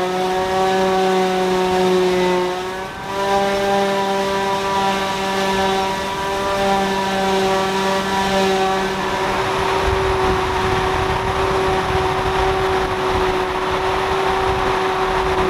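Forage harvester running steadily while picking up a grass windrow: a loud, even, pitched mechanical whine that dips briefly about three seconds in. From about ten seconds in, a rougher low rumble takes over beneath the whine.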